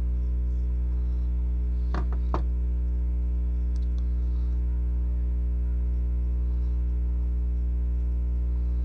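Steady electrical mains hum with evenly spaced overtones. Over it come two light plastic clicks about two seconds in, and a few faint ticks later, as the halves of a 3D-printed injection mold are handled and separated.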